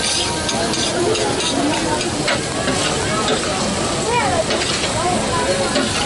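Chopped liver and tomatoes sizzling in oil on a large flat steel griddle, with a metal spatula scraping and stirring across the hot surface in repeated short scrapes and clicks.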